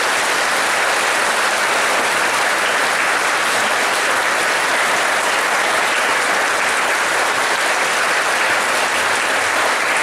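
Large theatre audience applauding, a dense, steady clapping that holds at one level throughout.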